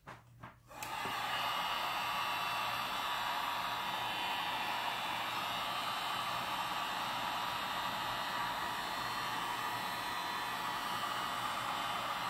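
Electric heat gun switched on about a second in, then blowing steadily with an even rushing hiss of fan and hot air, warming a decal to soften it before it is laid on a helmet.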